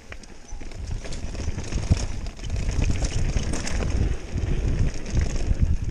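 Mountain bike riding fast down a rough dirt trail, with a steady low rumble from wind buffeting the microphone and from the tyres on dirt and rocks, and many small knocks and rattles as the bike hits bumps. The rumble grows louder about a second in and again partway through.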